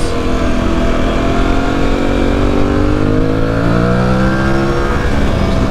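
Aprilia Tuareg 660's 659 cc parallel-twin engine accelerating under way, its pitch climbing steadily for about four seconds, then falling near the end.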